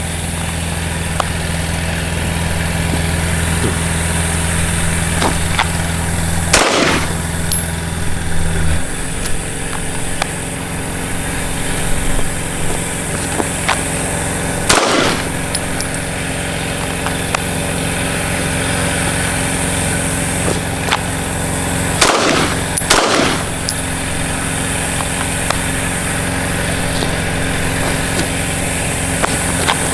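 Single shots from a CZ P07 9mm pistol, several seconds apart: four in all, the last two in quick succession, each with a trailing echo. The pistol is firing normally with a newly replaced firing pin.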